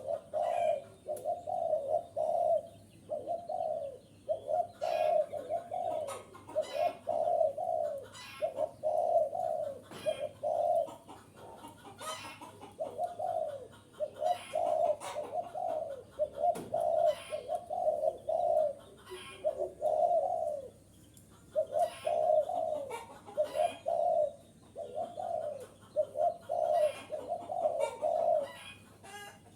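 Spotted dove cooing over and over in short phrases of several low coos, with brief pauses between phrases. It is the male's call, used as a lure to draw in other male doves.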